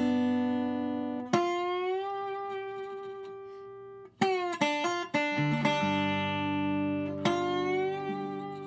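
Slow plucked-guitar music: notes and chords struck a few seconds apart and left to ring and fade.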